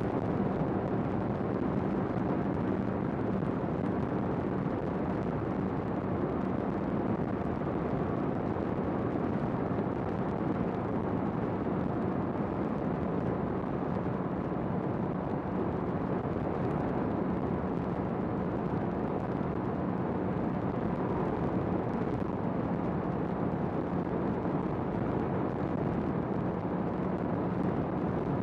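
Honda CBR650R's inline-four engine running at a steady pitch while the motorcycle cruises, with steady riding noise over it and no revving.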